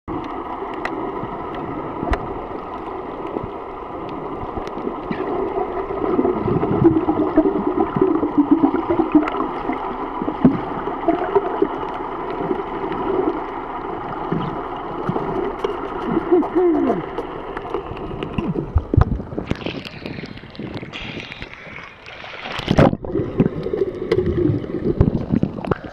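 Underwater sound picked up by a camera in its waterproof housing: a steady, muffled hum with gurgling. Near the end comes a louder rush of bubbles and water as the snorkeler exhales and swims up.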